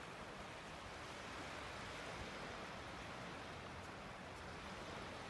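Faint, steady seaside hiss of shallow surf washing on a flat beach, with a light breeze and no distinct events.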